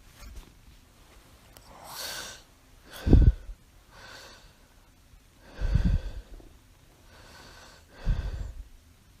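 A sleeping woman with mild sleep apnea breathing heavily, with three short, loud snores about two and a half seconds apart and fainter breaths in between.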